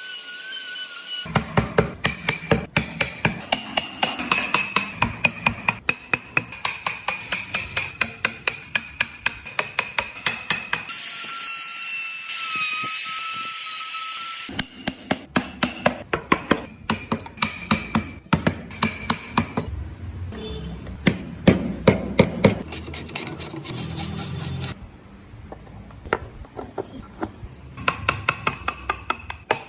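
Carving chisel being driven into wood with quick repeated mallet taps, about four a second. It is broken near the middle by a few seconds of a small power tool's high whine.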